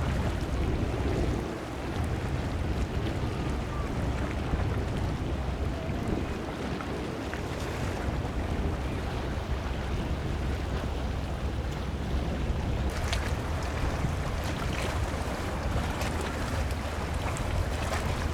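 Steady rushing wind and sea-surf noise, heaviest in the low range, with a run of small crackling splashes and clicks in the last few seconds.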